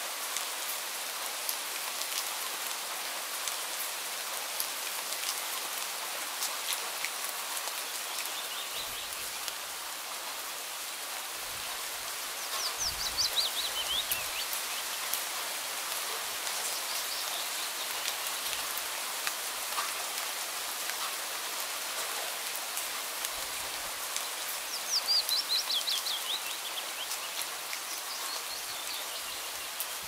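Steady rain falling, drops pattering on a surface. A bird twice sings a quick run of chirps that falls in pitch, about halfway through and again near the end.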